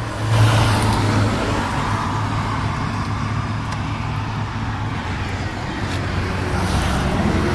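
Motor vehicle engine running with a steady low hum, slightly louder about half a second in.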